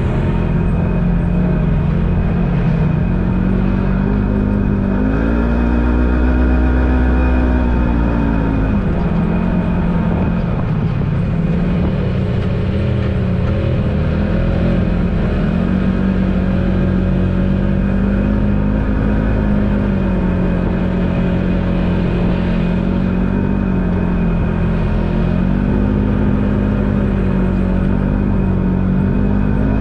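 Polaris General XP4 side-by-side's 999 cc twin-cylinder engine running steadily under way, the revs rising about five seconds in and easing back a few seconds later, then rising briefly again near the end.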